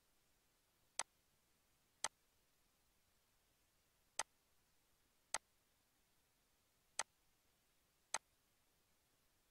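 Six separate, sharp computer mouse-button clicks at uneven intervals of one to two seconds, over near silence.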